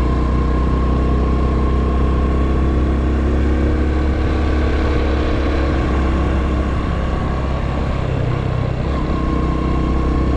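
Honda Super Cub 110's single-cylinder four-stroke engine running at a steady pitch while riding, with wind rumbling on the camera microphone.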